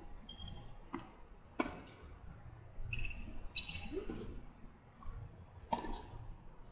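Tennis ball being hit during a rally on a hard court: sharp pops of ball on racket strings, a faint one about a second in, a louder one soon after, and another loud one near the end.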